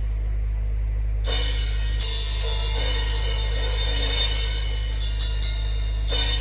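Cymbals and hi-hat playing through a large sound system during a sound check, the cymbal wash coming in about a second in, over a steady low hum.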